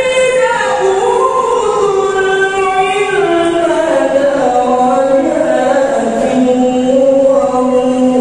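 A choir singing a slow melody in long held notes, the line stepping gradually lower in pitch.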